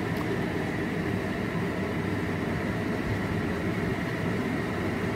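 A steady whirring noise of a machine running.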